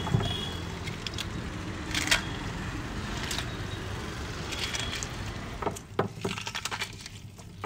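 Street ambience: a steady engine-like traffic hum with scattered sharp clicks and knocks, growing quieter over the last couple of seconds.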